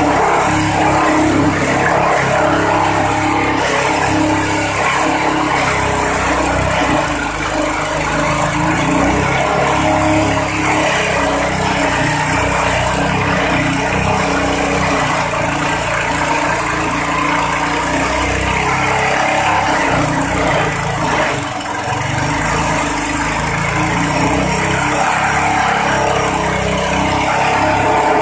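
Grass chopper driven by a small petrol engine, running loud and steady while its blades shred grass and stalks fed into it. The sound briefly drops a little about two-thirds of the way through, then comes back up.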